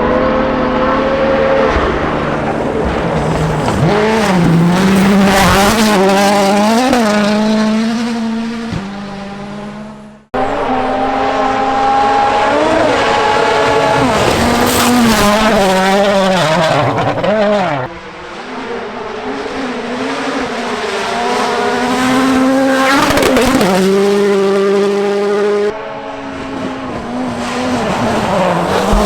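World Rally Championship cars' turbocharged four-cylinder engines at full throttle, the pitch climbing and dropping sharply as they shift gears and lift. Several separate flat-out passes follow one another, with abrupt cuts between them.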